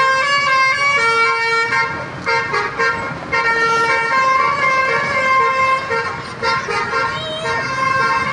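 Truck's multi-trumpet telolet horn playing a quick tune of bright, stepped notes, with short breaks between phrases.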